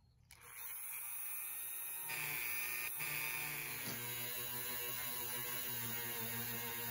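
Handheld rotary tool with a small wire brush wheel starting up about half a second in, then scrubbing rust off the metal latch of an instrument case: a steady high whine with a grinding hiss, fuller from about two seconds in.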